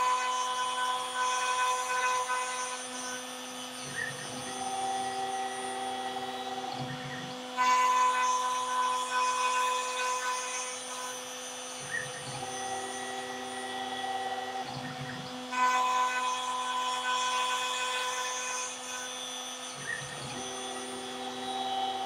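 The Stepcraft M1000 CNC router's 1 kW milling motor runs with a steady whine while a surfacing bit face-mills the top of a wooden panel in back-and-forth passes. The cutting noise jumps suddenly louder about every eight seconds, then eases off.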